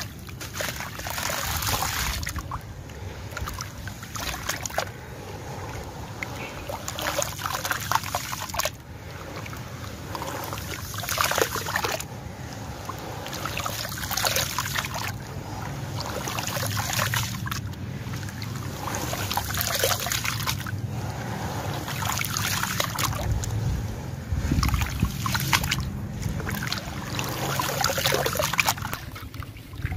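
Wet sand-cement chunks crumbling in the hands and dropping into a tub of water: gritty crunching with water trickling and splashing, in repeated bursts.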